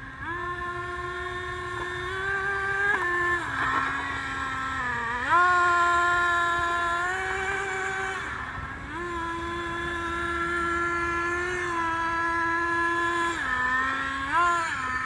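Remote-control toy car's whine as it drives, its pitch holding for a second or two and then stepping or gliding up and down with the throttle, with several quick pitch wobbles near the end.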